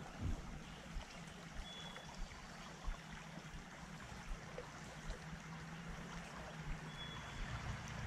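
A small creek running over shallow riffles: a steady soft rush of water. Two brief high peeps sound over it, about five seconds apart.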